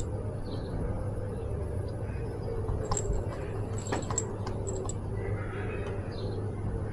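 Outdoor town ambience: a steady low hum with a wavering mid-pitched sound and a few faint sharp clicks.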